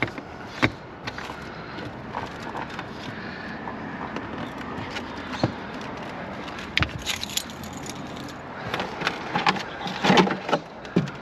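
Scattered clicks, knocks and small rattles of hands handling a radio-controlled monster truck, its wheel and a hand tool, with a denser run of knocks near the end, over steady background noise.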